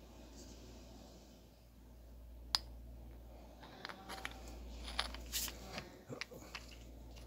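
A single sharp click about two and a half seconds in, fitting a small flashlight being switched on, followed by a run of small clicks and knocks as the flashlight and fingers handle a rough stone.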